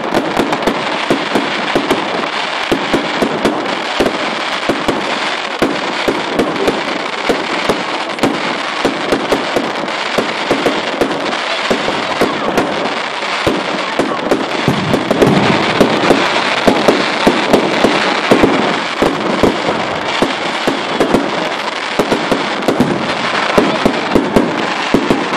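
Fireworks display: a dense, continuous barrage of shell bursts and rapid crackling, growing louder for a few seconds about fifteen seconds in.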